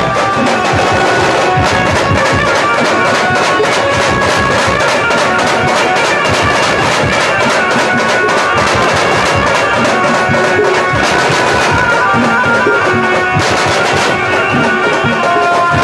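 Maharashtrian banjo party band playing loudly: a melody of sustained notes over fast, dense drumming.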